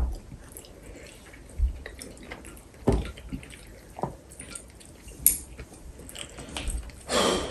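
Chopsticks knocking and clicking against plates and bowls during a meal of pounded yam and soup, with small wet eating and dripping sounds between a few scattered taps. A short noisy burst comes near the end.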